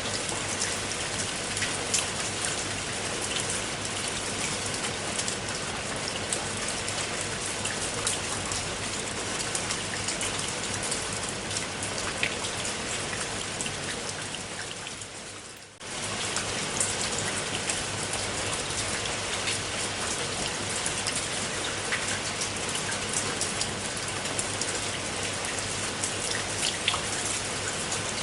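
Steady rain falling, with the clicks of individual drops heard among the hiss. About halfway through, the rain fades down over a couple of seconds and then comes straight back at full level.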